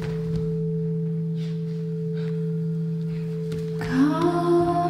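Sustained drone music: two steady low tones held throughout, joined about four seconds in by several higher tones that slide up briefly into place and then hold.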